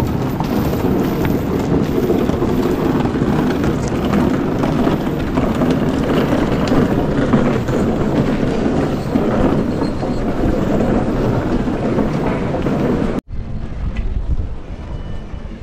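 Steady, loud scraping rumble of heavy wooden crosses dragged over stone paving. It cuts off abruptly about 13 seconds in, giving way to a quieter background.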